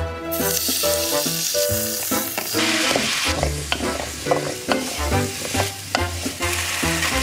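Small rice cakes stir-fried in oil and soy sauce in a nonstick wok: steady sizzling, with a wooden spatula knocking and scraping against the pan in the middle of the stretch.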